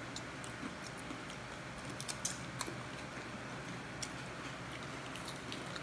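Faint, scattered small clicks and crackles of crisp baked pita chips being broken and dipped into hummus, a little busier about two seconds in.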